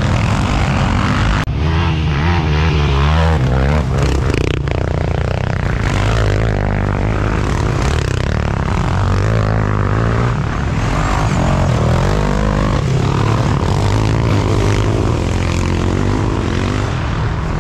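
Sport quad ATV engines running hard at racing speed, their pitch rising and falling as the riders rev and shift.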